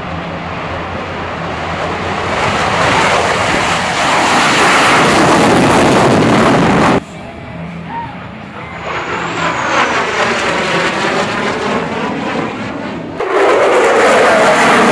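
Fighter jet engine noise as the jet takes off and passes overhead. The roar builds over the first several seconds and drops off abruptly about halfway through. It swells again with a sweeping, whooshing sound as the jet goes by, then jumps back to full loudness near the end.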